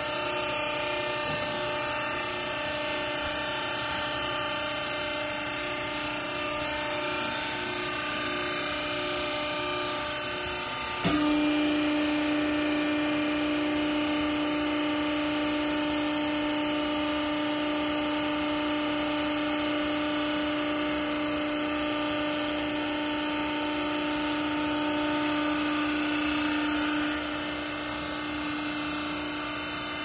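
Hydraulic pump motor of a vertical clothing baler running with a steady electric hum. About a third of the way in, its tone drops and grows louder as the pump takes load and the ram presses the clothes down, and it eases back near the end.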